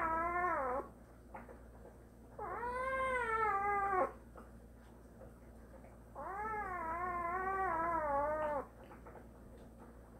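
Young tabby-and-white kitten crying in three long, drawn-out meows with short quiet gaps between: the first ends a little under a second in, the next two last about two seconds each. The owner puts the crying down to a belly bloated from being fed too much.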